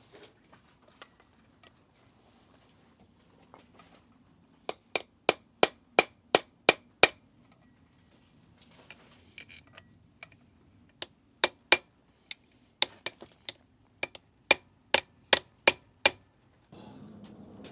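Light hammer taps on a stuck camshaft bearing cap of a VW 16-valve cylinder head, to work it loose. A run of about eight sharp metallic taps, then after a pause a second run of about a dozen, each with a brief ring.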